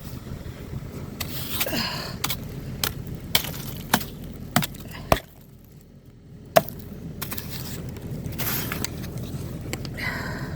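Crunching and knocking of crusted snow and ice: irregular sharp knocks, roughly one every half second, with a few longer scraping crunches. The knocks stop for about a second a little past the middle.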